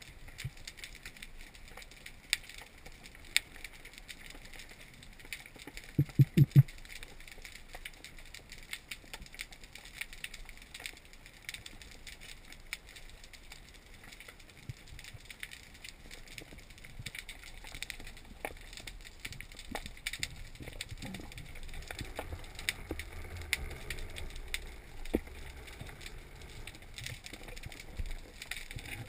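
Underwater ambience heard through a camera housing: a steady crackle of small scattered clicks. About six seconds in, a quick run of four or five loud, low knocks.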